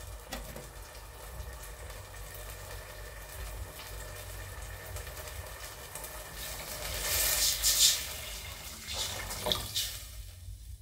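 Water poured from a glass jar into a stainless steel saucepan, the splashing loudest about seven to eight seconds in, followed by a couple of light knocks near the end.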